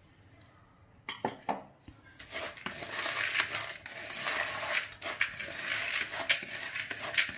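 Roasted salted peanuts and roasted gram powder being stirred with a spoon in a plastic bowl: a few knocks about a second in, then a steady rattling and scraping of nuts with small clicks of the spoon.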